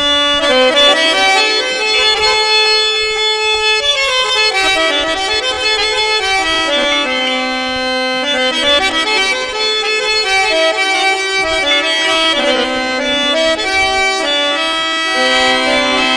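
Instrumental introduction to a Marwari folk song: a free-reed instrument plays a winding melody over held low notes, with no drums or singing.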